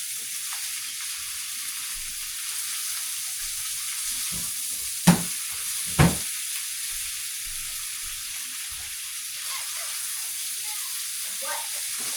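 Shrimp fried rice with onions, peppers and butter sizzling steadily in a pan. Two sharp knocks about a second apart near the middle are the loudest sounds.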